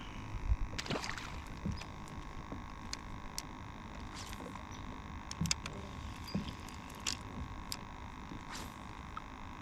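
Handling noise of a spinning rod and reel: scattered sharp clicks and a rustle about a second in, over a low rumble and a faint steady high hum.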